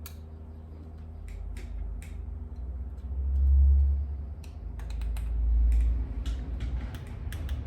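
Scattered light clicks and taps from handling a small car key circuit board and its parts by hand, with two low rumbling swells about three and a half and five and a half seconds in.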